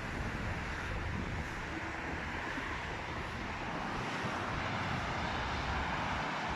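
Steady rush of street traffic, growing slightly louder towards the end, with wind buffeting the microphone.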